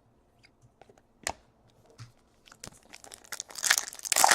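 Foil wrapper of a Bowman Chrome card pack being torn open and crinkled. A single sharp click comes about a second in, then the crinkling and tearing starts about two and a half seconds in and grows louder toward the end.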